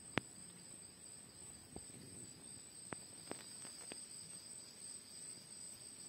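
Faint, steady high-pitched drone of a rainforest insect chorus, with a few sharp clicks: the loudest just after the start, then a handful around the middle.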